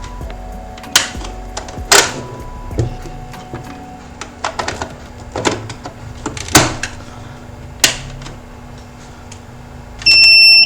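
Scattered sharp clicks and knocks of wires and parts being handled on the workbench, then a loud electronic beep of about half a second near the end.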